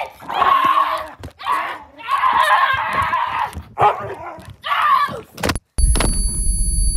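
A person yelling and shrieking in loud, wordless bursts. About five and a half seconds in it cuts off, and a loud low rumble with a steady high ringing tone starts.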